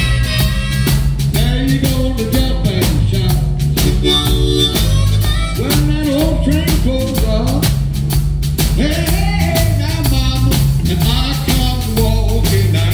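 Live blues band: a harmonica cupped against a handheld microphone plays bending, wailing lines over electric bass guitar and a drum kit.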